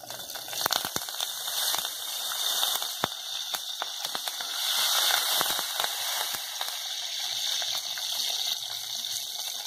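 Curry leaves dropped into hot oil with cumin seeds and garlic, sizzling hard with many small sharp pops and spatters. The sizzle swells about half a second in as the leaves hit the oil.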